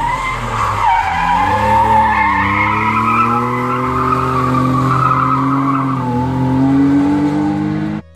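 BMW E30 saloon drifting through a hairpin: loud tyre squeal over the engine held at high revs. The revs dip briefly about six seconds in and climb again, then the sound cuts off suddenly near the end.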